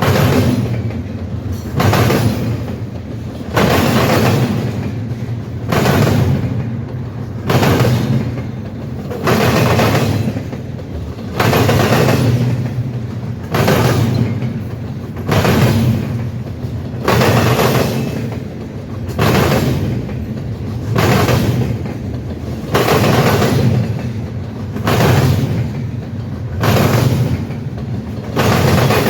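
A passing train's wheels banging over a rail diamond crossing, a heavy clank about every two seconds as each car's wheels hit the crossing frogs, over a steady rumble.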